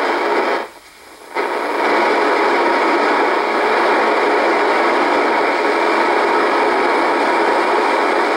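Icom IC-R8500 receiver in FM mode putting out loud, steady static hiss as it is tuned across empty channels near 26 MHz. About a second in, the hiss drops away for about half a second, then returns.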